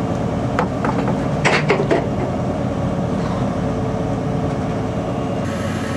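Boat engine running steadily under wind and sea noise, with a few sharp knocks about half a second to two seconds in.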